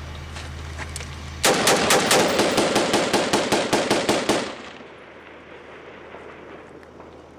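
Close automatic gunfire: starting about a second and a half in, an even run of about fifteen shots over three seconds, with a short echo after the last. A steady low hum runs under the opening.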